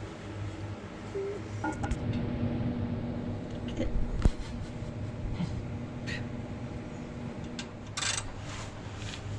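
Scattered metal knocks and clanks from work on a car's underside, the sharpest clank about four seconds in, over a steady low hum. A few short hissing scrapes come near the end.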